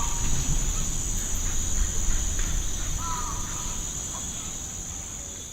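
Rainforest ambience: a steady high-pitched insect drone, with a bird giving a short call at the start and again about three seconds in, over a low rumble, the whole fading down toward the end.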